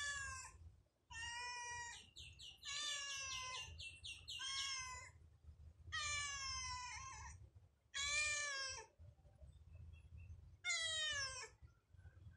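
Ginger cat meowing repeatedly, about seven meows in a row, each a falling cry about a second long. One meow in the first few seconds wavers in quick pulses.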